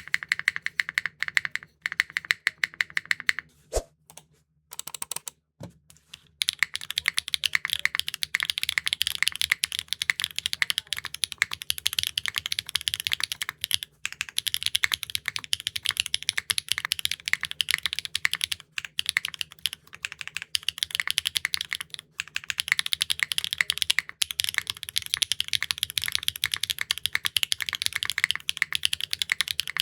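Continuous fast typing on a Neo65 Core Plus mechanical keyboard with HMX linear switches, an aluminum plate, no foam and GMK keycaps: a dense run of keystrokes with a brief pause about four to six seconds in.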